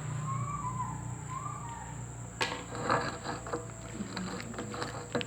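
Homemade slime being mixed and kneaded by hand: from about halfway in, a run of soft, irregular sticky clicks and squelches, after one sharper click. A steady background hum with a thin high whine runs underneath.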